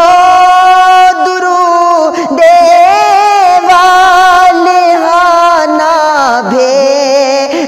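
A man singing a naat, an Urdu devotional poem, drawing one word out over long, wavering held notes, with two short breaks.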